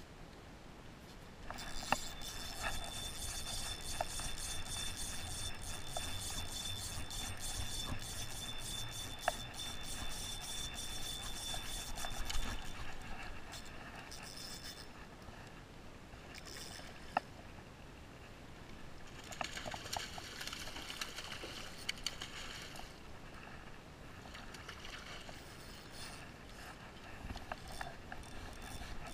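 Spinning reel being cranked to retrieve the lure: a steady whirr with fine, rapid gear ticking. It runs for about ten seconds from a couple of seconds in, then again for about three seconds around twenty seconds in, with a few separate clicks in between.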